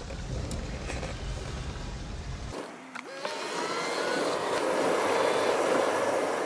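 Car road noise heard from inside the cabin while driving on wet, slushy streets: a steady low rumble, then after an abrupt change about two and a half seconds in, a louder hiss of tyres and engine with a faint rising whine as the car picks up speed.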